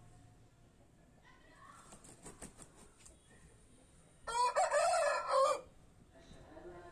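Aseel rooster crowing once, a single crow of just over a second about four seconds in.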